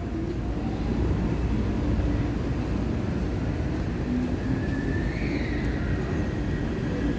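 Taipei Metro C371 steel-wheel metro train running along the underground platform: a steady rumble, with an electric motor whine that rises about five seconds in and then holds.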